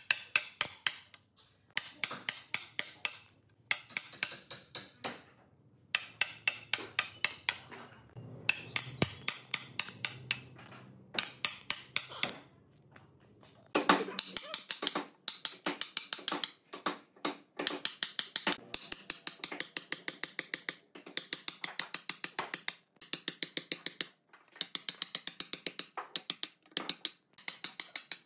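Steel chisel struck rapidly with a hammer, chipping out wood between saw kerfs in the end grain of a log: quick sharp strikes, several a second, in runs of a few seconds with short pauses.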